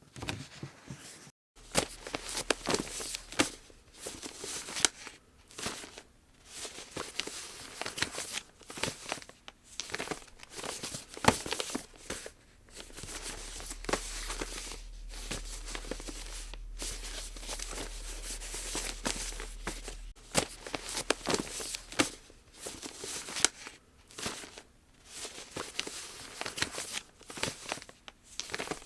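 Origami paper being handled and folded: irregular crinkling and rustling with sharp creasing clicks. There is a brief dropout about a second and a half in.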